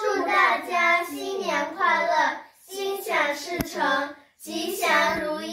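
Girls' voices singing together in three phrases of long held notes, with a single sharp click about three and a half seconds in.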